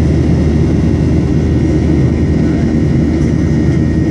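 Cabin noise of a Boeing 737-800 in flight: its CFM56-7B turbofan engines running and air rushing past the fuselage, a steady deep rumble with a faint thin whine held on one note.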